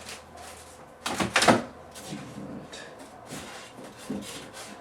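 Table saw parts and packaging being handled: a short clatter of knocks about a second in, then softer knocks and rustling.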